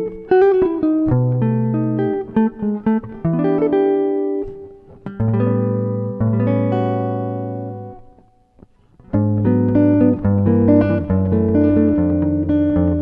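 Background music of plucked guitar over low bass notes. About halfway through, a chord rings out and fades to a brief pause before the picking starts again.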